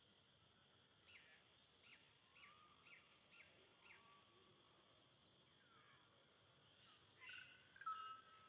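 Quiet forest ambience: a steady high insect drone, with a run of six short, falling chirps about a second in. Louder animal calls come near the end.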